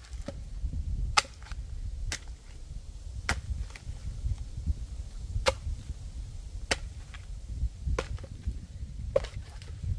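A series of sharp knocks, about seven of them, roughly one every second, over a steady low rumble.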